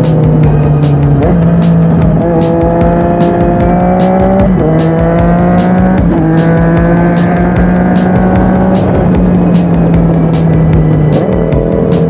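Yamaha MT-09 inline-triple with an Akrapovic shorty exhaust pulling through the gears. Its pitch climbs with short breaks at the upshifts about a second, four and a half seconds and six seconds in, then falls as the throttle eases off.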